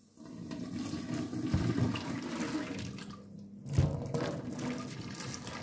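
Just-boiled water poured from a kettle in a stream into a stainless steel sink and down the drain, flushing baking soda and white vinegar through to clear odours and clogs. The pouring breaks briefly a little after three seconds in, then goes on after a knock.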